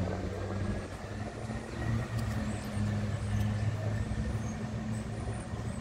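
Steady low rumble of distant vehicles, with a steady low hum under it and no train passing.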